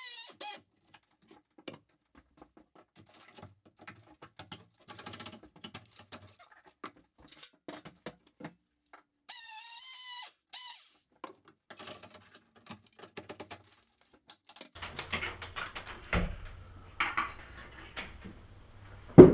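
Scattered light clicks, taps and scrapes of hand tools at work on drywall and framing. A brief wavering high squeak about nine seconds in, and a low hum with a few louder knocks near the end.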